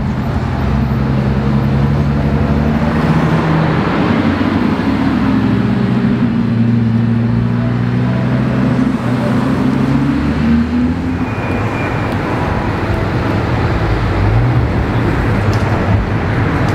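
Supercar engines at low speed as cars drive by in turn: a Bentley Continental GTC, then a Lamborghini Gallardo's V10, with a McLaren 720S Spider coming up near the end. Steady engine tones shift in pitch with the throttle through the first two-thirds, then give way to more even traffic noise with a short rev near the end.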